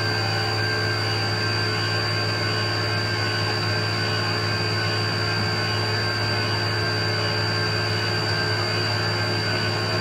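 Thread rolling machine running steadily as its two grooved dies roll threads into a steel bar: an even hum with a thin high tone above it.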